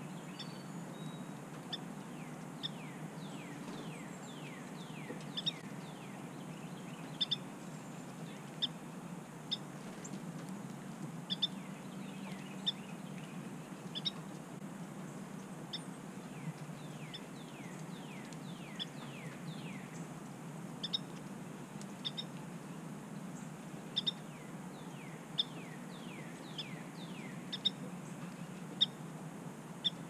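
Northern cardinals calling: sharp high chip notes about once a second, and three runs of quick downslurred whistles. A steady low hum runs underneath.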